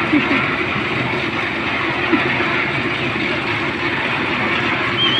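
Steady mechanical running noise, like an engine or machine running on the site, with a few faint short chirps over it.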